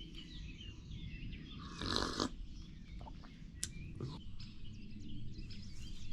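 Small birds chirping over a steady low rumble, with a brief rushing noise about two seconds in and a few sharp clicks a little later.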